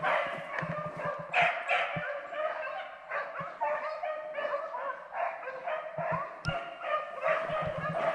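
A pack of beagles baying in full cry, many voices overlapping without a break: the hounds are running a rabbit they have just jumped.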